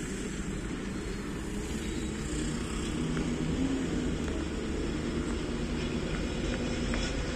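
WDM3A diesel-electric locomotive approaching from a distance with its train, a steady low engine drone that grows slightly louder.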